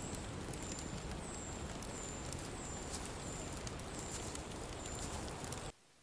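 Forest ambience from the show's soundtrack: a steady soft rustling hiss with a short, high chirp repeating about every two-thirds of a second, cutting off suddenly near the end.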